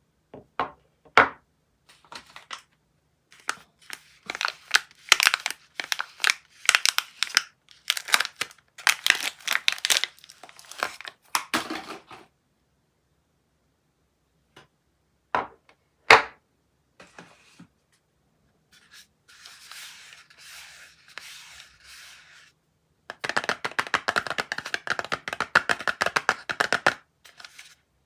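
Soap packaging being unwrapped by hand: the wrapper crinkling and tearing in bursts, with a few sharp snaps and short pauses between.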